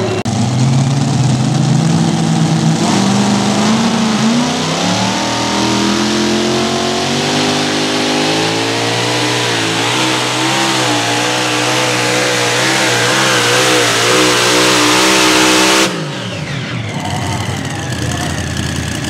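Competition pulling vehicle's engine at full throttle during a pull. The revs climb over the first few seconds, then hold high with a wavering pitch. The engine sound cuts off sharply about 16 seconds in, and a quieter engine sound continues.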